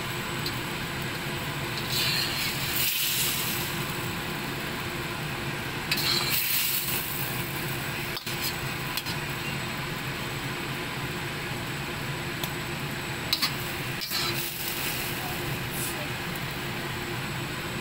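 Slotted spatula scraping and stirring in a wok of loofah and egg, in a few short bouts, over a steady background hum.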